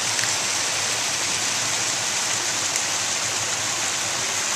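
Running water rushing steadily, as from a stream, with a couple of faint small ticks.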